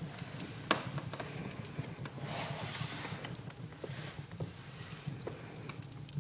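Wood fire burning: a steady low rumble with irregular crackles and pops, the sharpest pop just under a second in, and a short rush of hissing around two to three seconds in.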